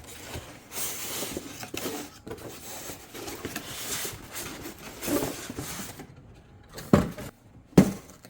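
Cardboard box and paper packaging being handled and slid about as the box is opened and its contents taken out, with a rustling, scraping hiss. Two sharp knocks, under a second apart, near the end are the loudest sounds.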